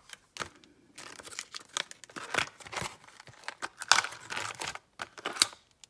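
Stiff clear plastic blister pack crinkling and crackling as it is picked up and turned over in the hands, in a quick, irregular run of crackles.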